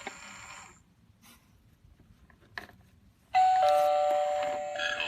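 Halloween novelty doorbell sounding an electronic ding-dong chime about three and a half seconds in: a higher tone, then a lower one, both ringing on. Shortly before it, a single click.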